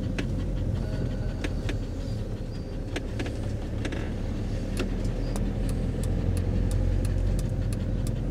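Fiat-based motorhome driving slowly: steady low engine and road rumble, with light, irregular clicks and rattles throughout.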